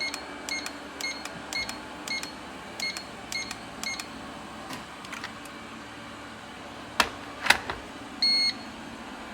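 Electric kettle's control panel beeping as its buttons are pressed: a run of short high beeps, about two a second, then two sharp clicks and one longer beep, over a low steady hum.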